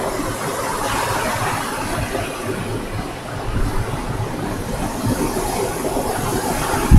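Ocean surf breaking and washing up the beach as a steady hiss that swells about a second in, with wind buffeting the microphone in low, fluttering rumbles.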